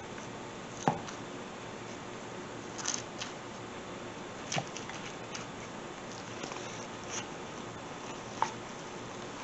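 A knife, then a spatula, cutting and lifting a piece of baked egg casserole in a ceramic baking dish: a handful of light, separate clicks and taps of metal against the dish over a faint steady hiss.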